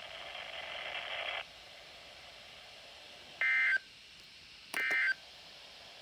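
NOAA Weather Radio SAME digital data tones coming through weather radio speakers: two short, loud bursts of buzzy two-tone data about three and a half and five seconds in. These short bursts are typical of the end-of-message code that closes a Required Weekly Test. Before them, about a second and a half of hiss.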